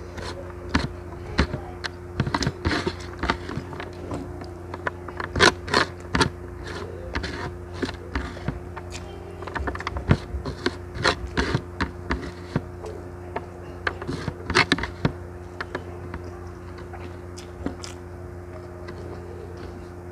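Close-miked hand-eating: fingers scraping and gathering rice grains across a metal tray, with irregular clicks and chewing, over a steady low hum.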